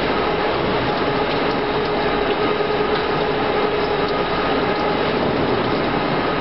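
Automatic chain link fence machine running, forming wire into the mesh spiral: a steady mechanical clatter of gears and moving parts with a faint hum.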